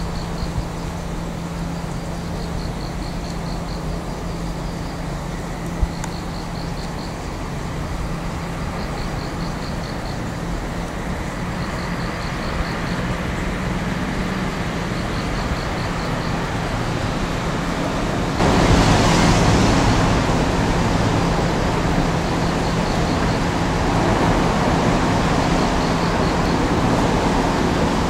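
Diesel-engined demolition machinery running with a steady low hum. It becomes sharply louder and harsher about eighteen seconds in and stays that way.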